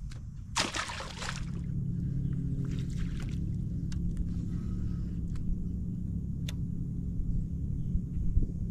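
A short splash about a second in, then a steady low hum of a bow-mounted electric trolling motor, with a few faint clicks over it.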